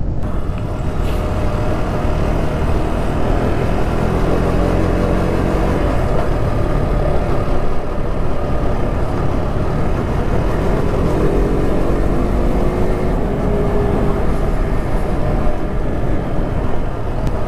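Motorcycle riding sound: an engine running steadily under heavy wind rush on the microphone, its pitch drifting up and down a little.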